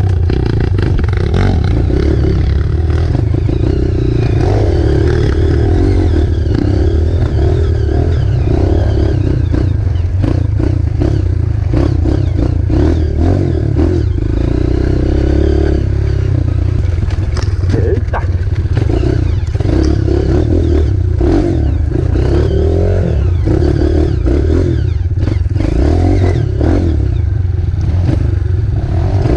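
Off-road trail motorcycle's engine running under changing throttle, its pitch rising and falling, with rattling and knocks from riding over rough ground.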